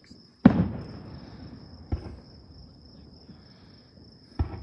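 Crickets trilling steadily and high-pitched under three sharp fireworks bangs. The first and loudest comes about half a second in and trails off in an echo, a weaker one follows near two seconds, and another comes near the end.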